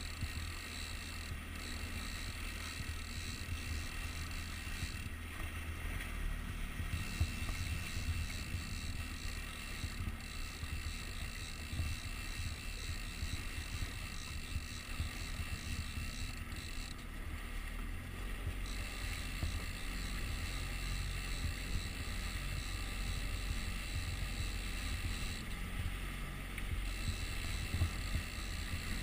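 A small boat underway at trolling speed: the outboard motor runs with a steady low drone, mixed with water rushing past the hull and wind on the microphone.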